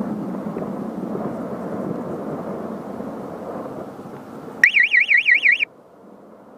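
Wind rushing over a weather balloon payload camera's microphone as it rises, then about four and a half seconds in a loud electronic warbling tone, its pitch wobbling about seven times a second, for about a second before cutting off suddenly, leaving a quieter hiss.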